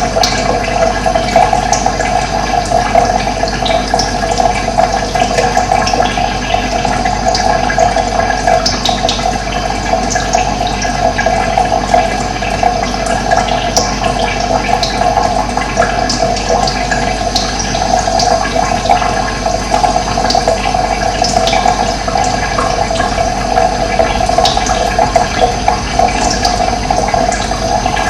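Steady rush of running water, with short high chirps of birds scattered through it.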